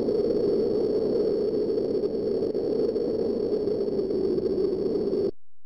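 Steady rushing noise effect, a looped sample played back by the Amiga, that cuts off suddenly about five seconds in.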